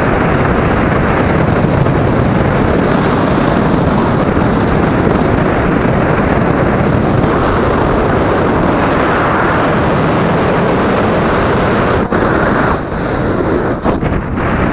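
Loud, steady wind noise rushing over an action camera's microphone on a paraglider in flight, dipping briefly a couple of times near the end.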